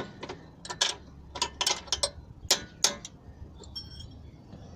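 Irregular sharp metallic clicks and clinks from a ratchet socket wrench and socket being fitted and worked on a gearbox mount bolt, coming in quick clusters for about three seconds, then a faint short metallic ring.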